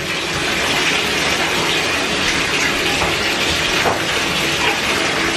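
Bathtub faucet running, a steady stream of water pouring into the tub.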